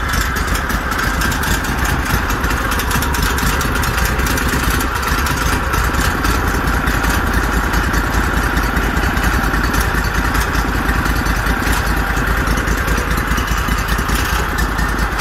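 Duromax XP23HPE 713cc V-twin engine running steadily, fitted with a Performance 670 Mikuni carburetor kit.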